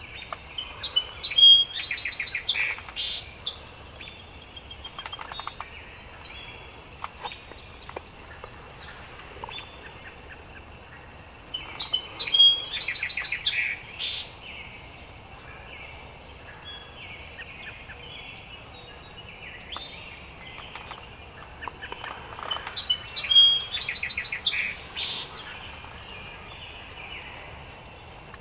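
Wild turkey gobbling three times, about ten seconds apart, each gobble a loud rattling call lasting a couple of seconds.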